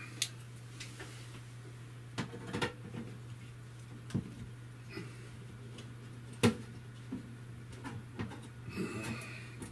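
Scattered small clicks and taps of a hand tool and hands working the screw and the sheet-metal cover of a Stiebel Eltron Tempra 24 Plus tankless electric water heater. One sharper click comes about six and a half seconds in, over a steady low hum.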